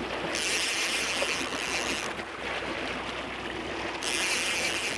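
A trolling boat's engine running steadily with water rushing past the hull. A hiss comes on twice, for about two seconds just after the start and again for the last second.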